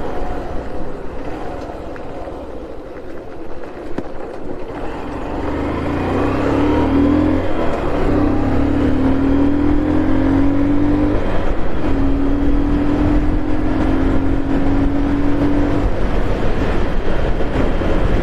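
Vehicle engine on the road over a steady rush of wind and road noise. From about six seconds in, its pitch rises three times with short breaks between, as it accelerates through the gears.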